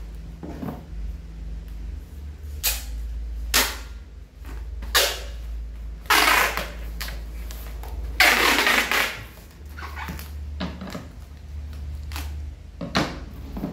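Packing tape being pulled off the roll and wrapped around a plastic-wrapped parcel, in several separate noisy bursts, the longest about eight seconds in. Scissors cut the tape near the end. A steady low hum runs underneath.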